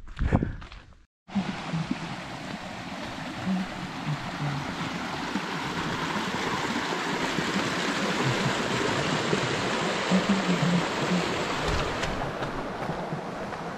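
A small stream running over rocks: a steady, dense rush of water that starts abruptly after a short break about a second in.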